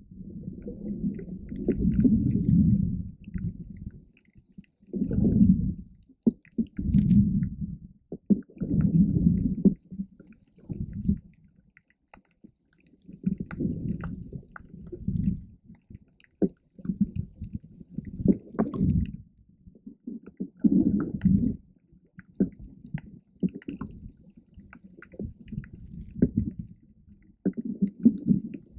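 Muffled water noise heard through a GoPro's underwater housing: irregular low rumbling surges of water moving against the camera, coming every few seconds, with scattered small ticks.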